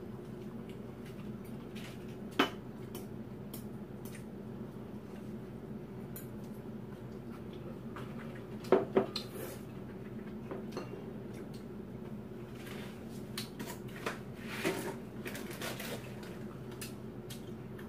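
Chopsticks and a metal utensil clinking and scraping against ceramic bowls as a meal is eaten: a single sharp clink about two and a half seconds in, a louder double clink near nine seconds, and a run of lighter clinks a few seconds later, over a steady low hum.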